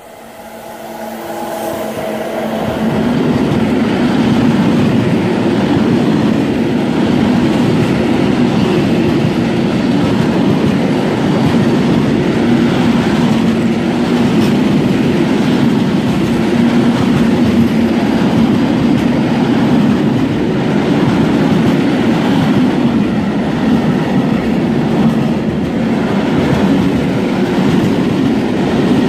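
Freight train passing close by: a DB Class 185 electric locomotive draws near with a whine of several steady tones, growing louder over the first few seconds, then a long string of covered hopper wagons rolls past with a steady rumble and clatter of wheels on the rails.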